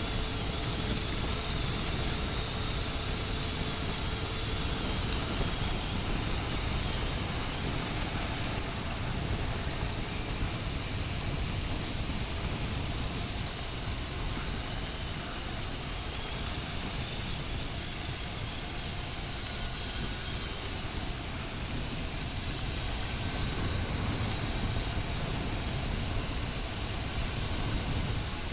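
A motorcycle being ridden: a steady rush of wind on the microphone over the engine and road noise, holding even throughout.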